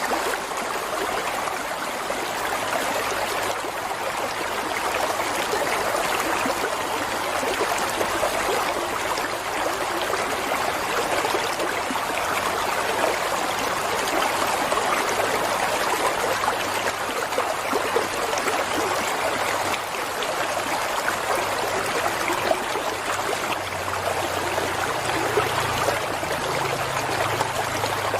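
Water running in a small stream, a steady babbling and trickling with many small splashes.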